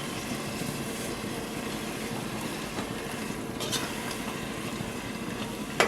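Onion-tomato masala with spice powders sizzling steadily in hot oil in a pressure cooker as it is sautéed, with a faint click of the stirring spoon a little past the middle.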